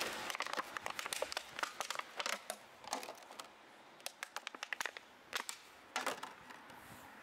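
Thin plastic waste (clear PET bottles, plastic cups and trays) crinkling and clicking as hands rummage through a sack of mixed plastics. It is a run of irregular sharp crackles that thins out and stops about six seconds in.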